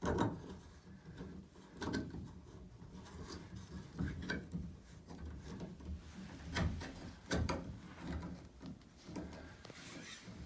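Handling sounds of a shower fitting being put back on and screwed onto the new extension pipe: scattered knocks and clicks with some rubbing, at irregular intervals.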